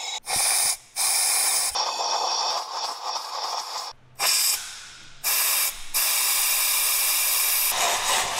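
Compressed-air blow gun hissing in several short blasts, then one longer blast, down the injector bores of a flooded BMW 520d diesel engine. It is blowing out the water that got into the cylinders through the air intake, so the engine is not cranked against trapped water.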